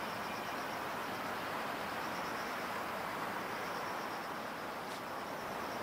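Insects chirping in a fast, steady pulsing trill over a steady rushing background noise.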